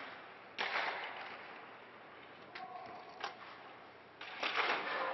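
Hockey practice on the ice: sharp cracks of sticks and pucks and scraping rushes of skates, each sudden and trailing off with the rink's echo. The two loudest rushes come about half a second in and near the end, with two short clicks in between.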